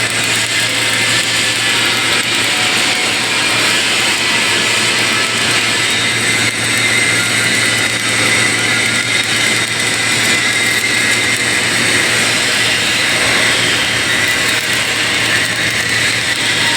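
Steady machine noise of an automatic submerged arc pipe-welding setup: a loud, even hiss with a constant low hum underneath.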